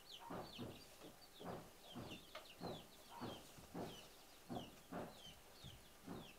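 Chickens clucking faintly, a short call about every half second, with high falling chirps among them.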